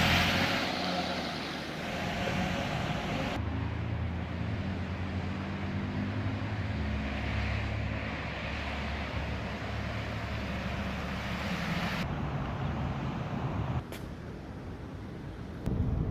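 Jeep Wrangler's 3.8-litre V6, running smoothly on its swapped-in engine as the Jeep drives, with engine and road noise. The sound changes abruptly a few times between shots.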